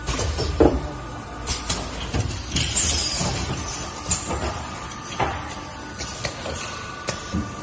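Automated welding production line machinery running: irregular sharp clacks and knocks, a burst of hiss about three seconds in, over a steady low hum with a faint whine.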